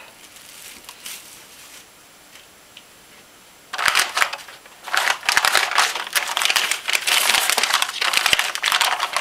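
Freezer paper crinkling and rustling as it is unfolded and peeled back from a loaf of set soap, loud and crackly from about four seconds in. Before that, faint rustling of plastic wrap being lifted off.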